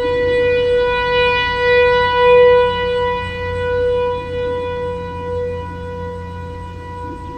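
Equinox electronic outdoor warning siren sounding a steady single-pitch tone during its monthly test. Its loudness swells and fades, peaking about two and a half seconds in and easing off near the end.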